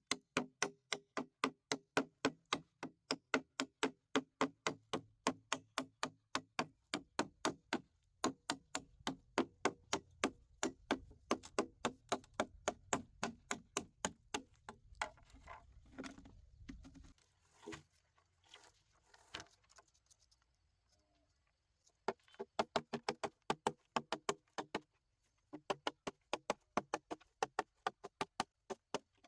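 Rapid, regular knocking strikes, about four a second, each with a short ring. They break off for a few seconds past the middle and start again near the end.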